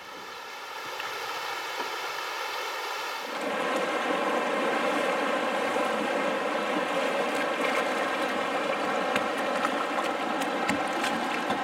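River water rushing through shallow rapids around a kayak, with wind buffeting the microphone; it steps up in level about three seconds in.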